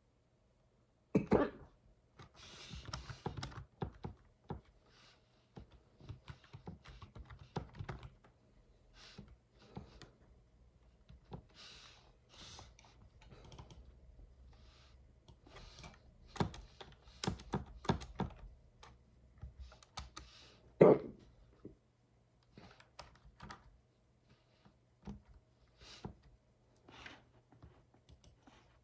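Typing on a computer keyboard: irregular runs of key clicks. Two loud, sharp hiccups cut in, one about a second in and a louder one about 21 seconds in.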